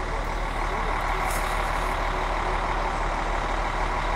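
Steady engine drone of heavy vehicles, with a faint high steady whine over it and a short hiss a little over a second in.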